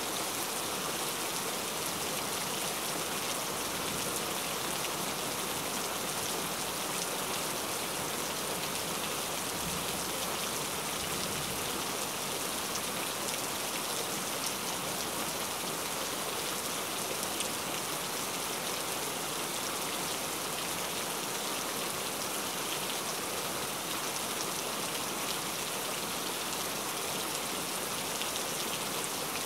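Steady rain falling: a constant, even hiss of many drops that never lets up.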